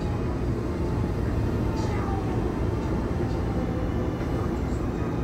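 Interior of a Taiwan Railway EMU700-series commuter train (EMU714+EMU713) under way: a steady low rumble of wheels on rail and running gear, with a faint whine above it.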